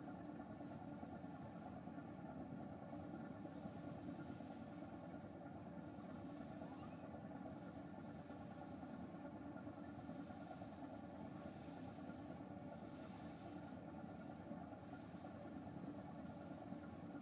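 Steady drone of a car ferry's engines under way, even throughout, with wind noise on the camera's built-in microphone, which has no windscreen.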